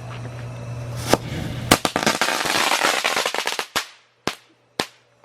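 Firecrackers going off: a single bang about a second in, then a rapid crackle of many pops for about two seconds, and three separate bangs near the end.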